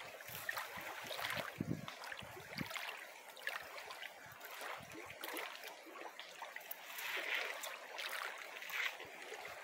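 River water running and trickling along the bank, with light scattered taps and a few low thumps in the first few seconds.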